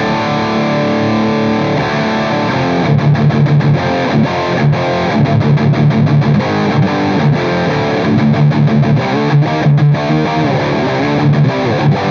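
High-gain distorted electric guitar playing a riff: held notes at first, then from about three seconds in fast, chugging rhythm playing broken by short, sharp stops.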